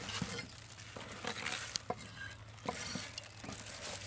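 Gloved hands handling wet pieces of boiled beef tripe and intestine on a plastic tray: a soft rustling with several light knocks.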